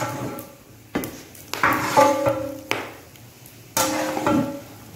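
Long metal ladle stirring a thick vegetable-and-coconut mix in a large metal cooking pot, knocking and scraping against the pot's side about once a second. Each knock leaves the pot ringing briefly.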